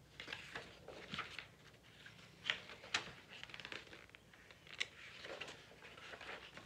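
Pages of a hardcover picture book being turned: stiff paper rustling, with a few sharp page snaps.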